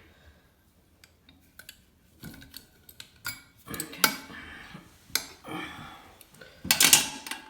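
Small metal and plastic tap parts and a hand tool being handled: scattered clicks and light clatters, loudest in a cluster near the end.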